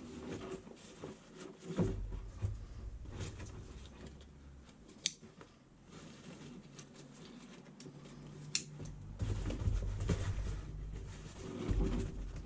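Nylon tactical waist pack and its webbing straps being handled and adjusted: fabric and strap rustling with low bumps as it is moved, and two sharp clicks, about five seconds in and again about three and a half seconds later.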